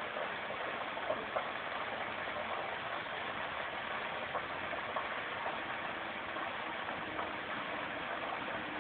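A large building fire burning: a steady rushing hiss with a few faint cracks and pops.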